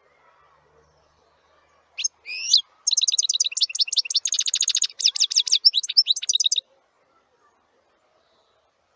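A small songbird singing: two quick rising whistled notes, then a fast, high chattering trill of rapidly repeated notes lasting about four seconds that stops abruptly.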